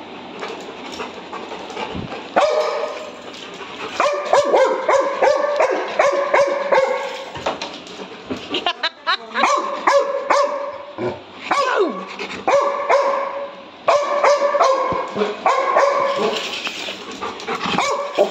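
Yellow Labrador retriever barking in runs of short barks, starting a couple of seconds in, with a few falling yelps in the middle.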